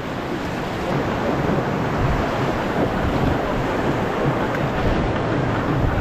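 Fast river water rushing and splashing around an inflatable raft, with wind buffeting the action camera's microphone in a low, gusty rumble.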